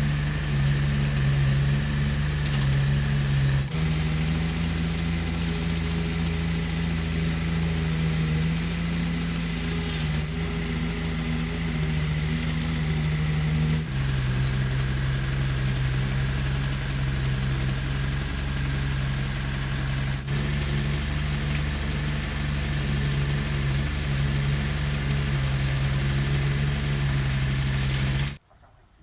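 Heavy construction machine's engine running steadily, in several stretches split by abrupt cuts, then stopping abruptly near the end.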